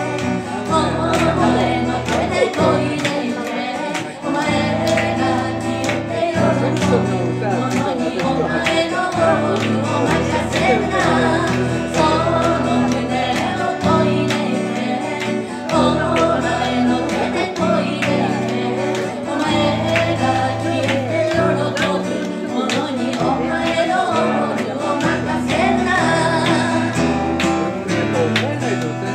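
A woman singing to her own strummed acoustic guitar, a steady strumming rhythm under the voice.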